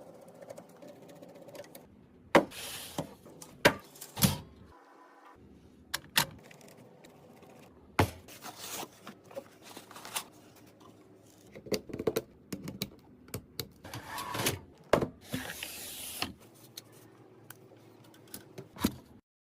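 Scattered clicks, taps and short rustles of computer parts being handled and fitted together: plastic and metal pieces snapping and sliding into place, a dozen or so sharp clicks spread irregularly, with two longer scraping rustles. The sound cuts off abruptly near the end.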